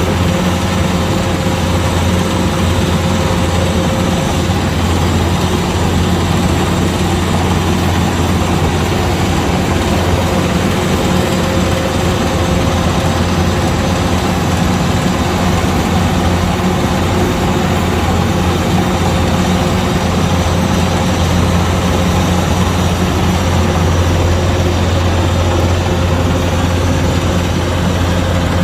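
Kubota DC-105X combine harvester running steadily, a constant loud low engine drone with no change in pace.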